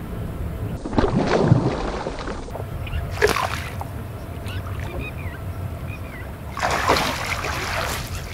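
Water splashing in bursts as a hooked rohu thrashes at the surface, with a landing net swept through the water to scoop it near the end.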